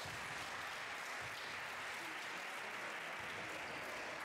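Spectators applauding in a sports hall: steady clapping from a small crowd.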